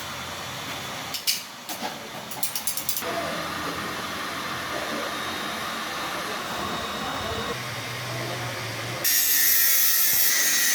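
A power drill running in a loud, steady high-pitched whir that starts near the end, with a few sharp clicks and taps earlier on.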